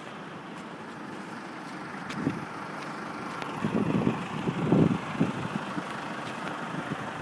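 Tractor with a front snow-plough blade driving past on a snowy street, with other traffic. Its engine grows louder towards the middle, with a few uneven surges.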